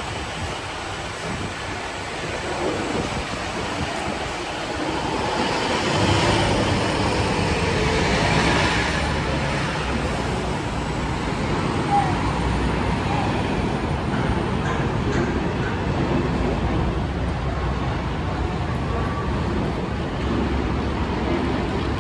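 Road traffic running past a kerbside: a steady hum of vehicles, swelling about six seconds in as one passes closer.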